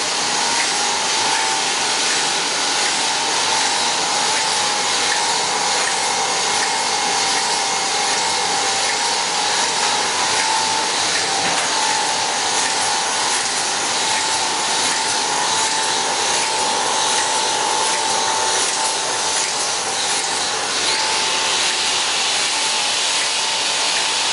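NJP 400 automatic capsule filling machine running: a loud, steady mechanical whirring hiss with a constant whine.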